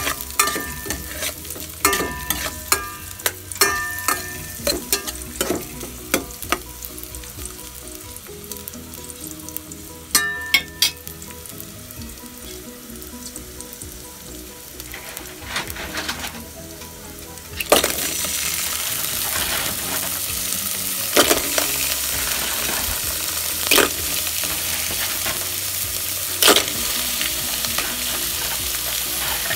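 Shallots and ginger frying in oil in an aluminium pot, with a spatula scraping and tapping the pot in ringing clinks for the first several seconds, then a softer sizzle. About two-thirds of the way in, the sizzle suddenly turns louder and hissier as clams go into the hot pot, with a few sharp clinks of shell or spatula on metal.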